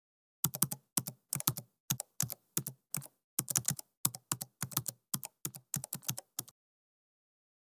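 Keyboard typing sound effect: quick key clicks in short runs of three or four, stopping about a second before the end.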